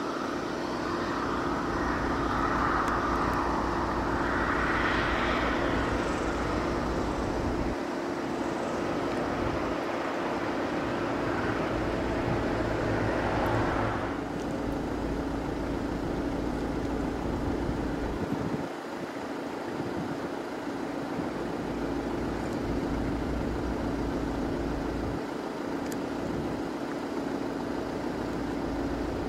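Single-engine turboprop engine and propeller running as the aircraft rolls along the runway, a steady drone with a hissing swell a few seconds in. The louder engine noise drops off abruptly about 14 seconds in, leaving a lower steady drone, with wind rumbling on the microphone off and on.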